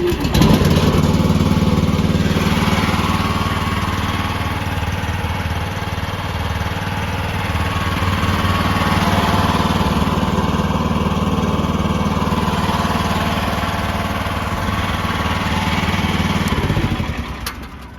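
Small gasoline engine of a new EGN EG360 mini skid steer loader, started on choke, catching right at the start and running steadily. It is shut off and dies away about a second and a half before the end.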